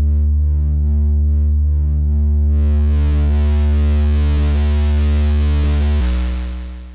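A sustained Monark synth bass note played through Maschine's Mulholland distortion, its upper tones wavering at first, then turning much brighter and more distorted about two and a half seconds in as the drive is turned up. Near the end the note is let go and fades out.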